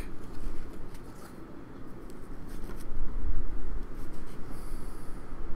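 Fingers handling a cardboard trading card: soft scratchy rubbing and faint ticks over a low steady rumble, with a short brighter scrape near the end.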